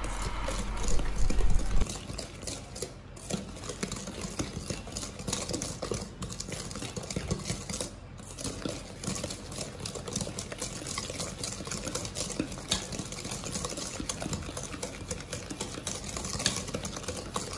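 Wire balloon whisk beating a creamed butter, sugar and egg-yolk mixture in a stainless steel bowl: a quick, steady run of scraping and clicking as the wires strike the bowl. This is the creaming stage, beating the batter until it turns paler.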